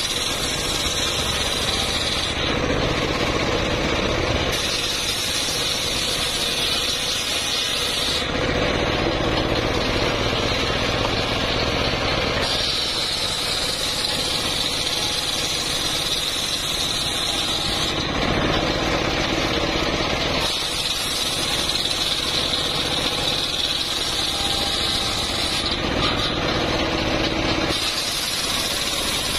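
Homemade circular sawmill (srekel) driven by a stationary engine, its blade ripping old mahogany slabs while the engine runs steadily. The sound shifts every few seconds between a hissing, higher cutting sound and plainer engine running as cuts begin and end.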